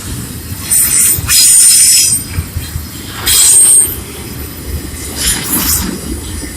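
Train passing with a steady low rumble, its wheels squealing against the rails in three loud high-pitched bursts.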